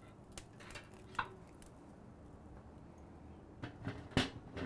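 Light metal clicks as rib hooks settle on the hanging ring of a Badger Barrel drum smoker, then a few louder metal clanks near the end as the lid is set back on the barrel.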